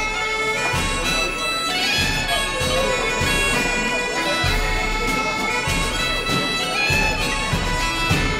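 Scottish Highland bagpipes playing a tune, the melody moving from note to note.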